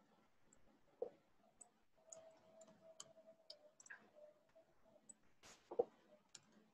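Faint scattered clicks of keys being pressed on a computer keyboard, with two louder taps, about a second in and near the end.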